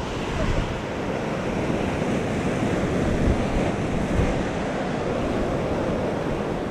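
Rough sea surf breaking and washing over a rocky shoreline in a steady, unbroken wash, with wind on the microphone.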